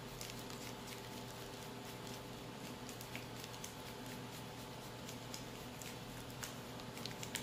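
A block of Parmesan cheese scraped back and forth on a flat handheld metal grater: faint, irregular scratchy ticks, over a steady low hum.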